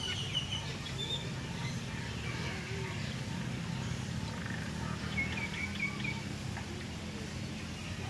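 Small birds chirping in short rapid trills, once at the start and again about five seconds in, over a steady low rumble.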